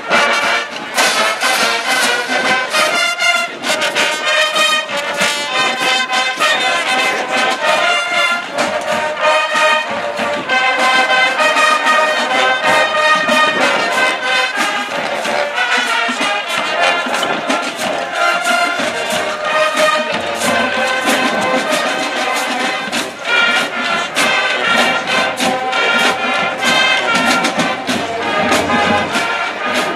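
Marching band playing: brass section on held and moving notes over drum hits.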